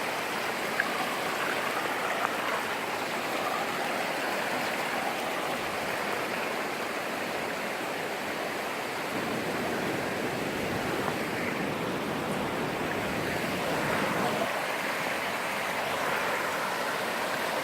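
Steady rush and splash of water pouring down a waterfall cascade.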